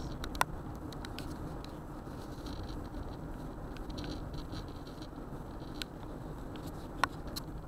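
Steady low road and wind noise inside a car's cabin driving at highway speed through a dust storm, with scattered light ticks and two sharp clicks, one just after the start and one near the end.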